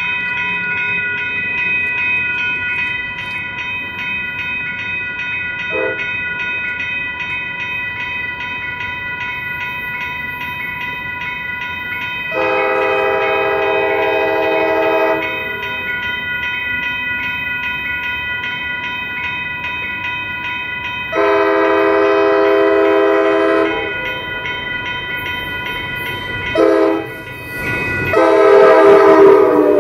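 A WCH electronic crossing bell dings continuously at a railroad grade crossing while an approaching Amtrak F59PHI locomotive sounds its horn in the standard crossing pattern: two long blasts, a short one, then a long one held to the end.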